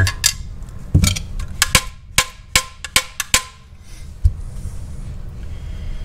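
Sharp metallic clicks and clinks from a steel brake pedal box assembly and a long screwdriver being handled while the brake pedal's return spring is seated, about a dozen in quick succession, then one last knock about four seconds in.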